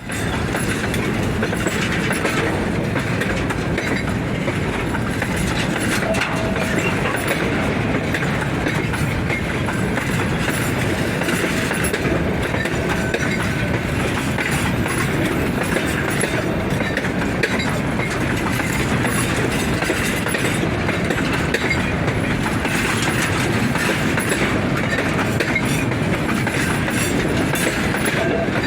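Freight train's HFD wagons rolling past steadily, with a continuous rumble of wheels on rail and a clickety-clack over the rail joints.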